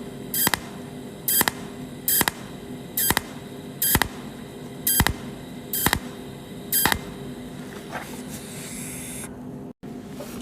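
Cold welding machine firing pulse welds joining a copper tube to an iron tube: a sharp snap about once every 0.8 seconds, eight in all, over a steady electrical hum. The snaps stop about seven seconds in.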